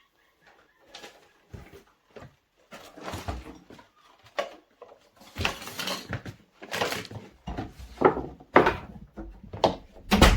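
Close handling noise of a hair curler's power cord being freed from its tape and uncoiled: irregular rustles, scrapes and light knocks of plastic cord and tool on the desk, busiest over the second half.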